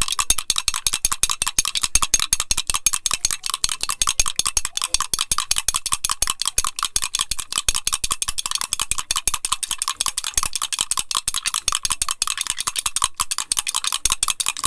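A steel spoon beating instant coffee, sugar and a little milk into a thick paste in a glass mug, clicking fast and steadily against the glass, several strokes a second without a break. The coffee is being whisked until it froths and turns pale.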